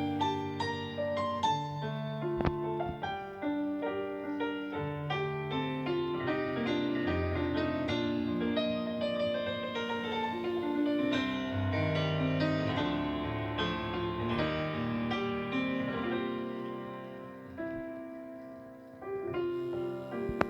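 Instrumental break of a pop love ballad: a piano melody over bass and keyboards, with no singing. The music softens briefly near the end before picking up again.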